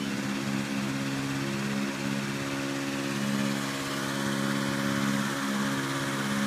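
Engine-driven inflator fan running steadily at one speed, a constant engine hum under a rush of blown air, as it cold-inflates a hot air balloon envelope.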